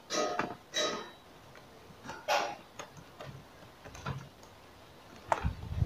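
Computer keyboard keys clicking as a password is typed: a few separate, irregular keystrokes, the loudest one near the end.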